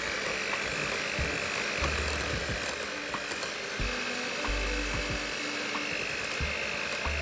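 Electric hand mixer running steadily at speed, a constant high motor whine over the whir of its wire beaters as they whisk a thick cream mixture in a glass bowl.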